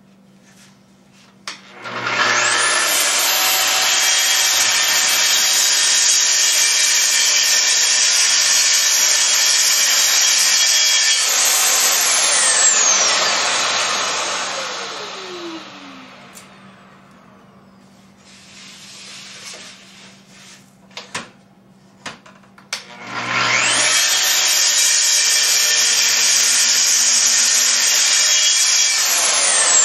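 DeWalt plunge track saw cutting through a red oak panel, with the Festool dust extractor it switches on running alongside. It runs for about ten seconds, then winds down with a falling whine. After a few quiet seconds with a few clicks, it starts again about 23 seconds in and runs on.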